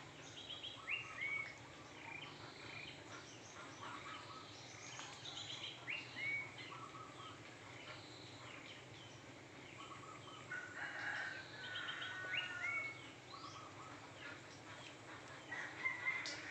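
Birdsong: many short chirps and quick trills from several birds, scattered throughout, with a run of longer curving calls about two-thirds of the way in, over a faint steady low hum.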